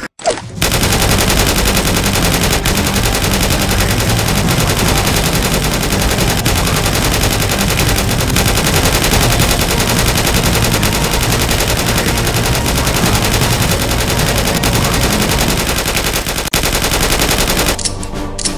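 Sustained automatic gunfire: a loud, dense string of rapid shots running almost unbroken, starting about half a second in and cutting off just before the end.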